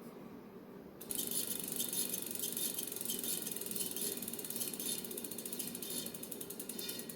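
Bicycle wheel spun by hand, giving a fast, even mechanical clicking that starts suddenly about a second in and slows slightly near the end as the wheel loses speed.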